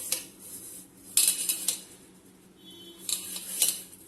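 Electric kettle being handled and its dirty wash water tipped out: three short bursts of clinking and splashing, about a second and a half apart.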